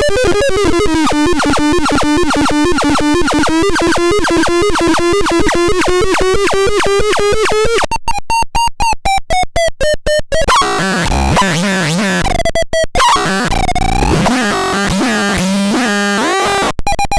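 Synthesizer making noisy experimental tones: a fast buzzing pulse train whose pitch sinks and then slowly rises, cut about eight seconds in into a choppy, stuttering pattern for a couple of seconds, then turning into warbling, wobbling tones.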